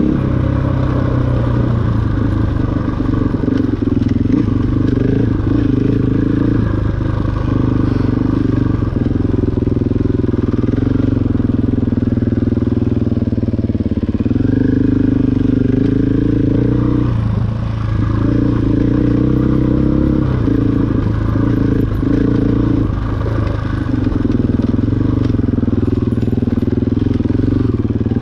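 KTM 500 dual-sport bike's single-cylinder four-stroke engine running steadily under way on a trail. The engine note eases briefly a couple of times, once past the middle and again about two-thirds in, as the throttle comes off and back on.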